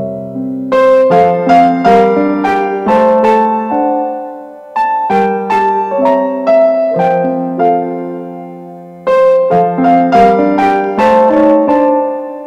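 Piano music: a melody of struck notes over lower held notes, with two brief lulls where phrases end and new ones begin.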